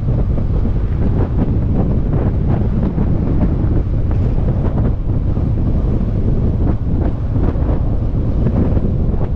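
Heavy wind buffeting the microphone of a camera on a moving motorcycle: a loud, steady low rumble with gusty flutter, over the bike's running noise.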